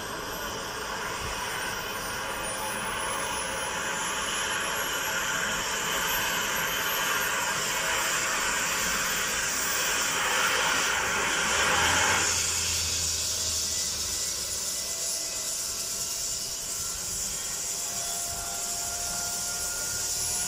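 Air ambulance helicopter running on the helipad with its rotor turning: a steady turbine whine and rotor noise, the whine slowly rising in pitch as the engine spools up for take-off. A broad rushing noise builds over the first dozen seconds and cuts off abruptly about twelve seconds in.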